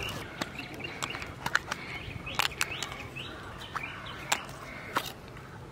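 Quiet outdoor ambience with faint bird chirps and a scattering of short, sharp clicks and taps.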